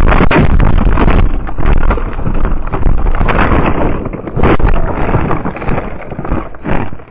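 Violent storm wind roaring and buffeting the microphone, with repeated knocks and bangs, loudest over the first few seconds and easing toward the end.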